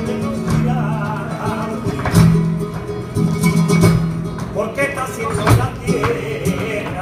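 Live flamenco music: guitar playing with sustained low notes, broken by sharp, irregular percussive strikes.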